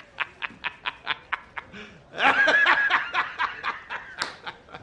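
A person laughing in a rapid run of short pulses, about six a second, with a longer, higher laugh about two seconds in.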